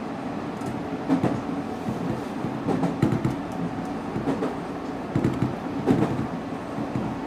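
Nankai 1000 series electric train running at speed, heard from inside the front car: a steady hum with a few sharp clacks of the wheels passing over rail joints.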